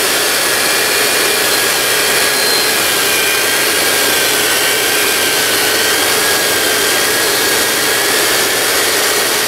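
Dumore toolpost grinder running, its wheel grinding a spinning 60-degree lathe center to true it up. A steady hiss with a faint, slightly wavering high whine.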